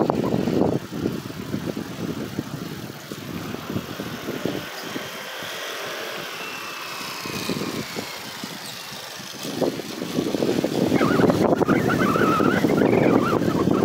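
Wind buffeting the microphone of a camera carried on a moving bicycle, mixed with road-traffic noise from the avenue alongside; it gets clearly louder about ten seconds in.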